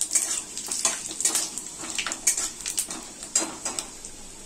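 Metal spatula scraping and knocking against a kadai, stirring panch phoron, bay leaf and dried red chillies as they temper in hot oil, with a faint sizzle underneath. The strokes are irregular, several a second, and thin out toward the end.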